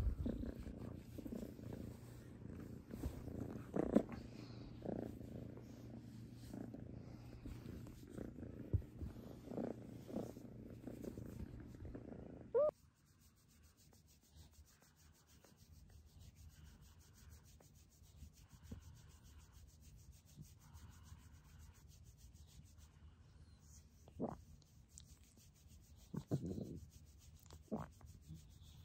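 Kitten purring steadily while a hand strokes its fur, with rubbing sounds over the purr. About halfway through, the purring cuts off and gives way to a much quieter stretch with a few faint, short sounds.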